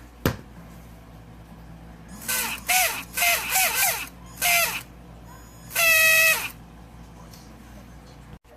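Traxxas electric RC motor whining under short throttle blips: five quick bursts, each rising and falling in pitch, then one louder, steady whine held for under a second. This is the high-pitched squeal of a binding motor.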